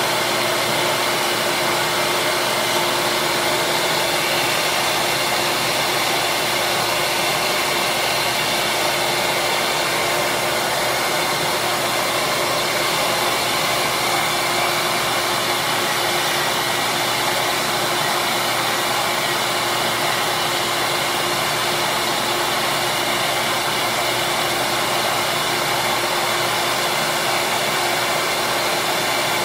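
Small benchtop sander running steadily, a constant whir with a steady hum, while small plastic slider pieces are shaped against its sandpaper disc.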